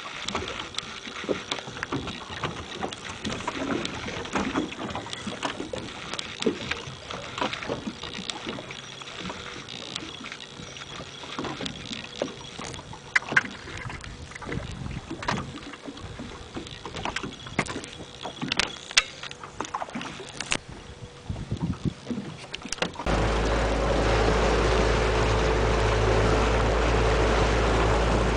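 Small fibreglass boat rocking on open water, with irregular splashing, knocks and clicks against the hull. Near the end a much louder steady rumbling noise with a faint hum sets in abruptly.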